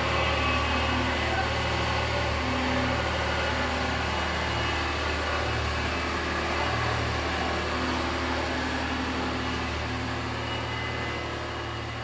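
New Holland L775 skid steer engine running at a steady speed, growing slightly quieter toward the end.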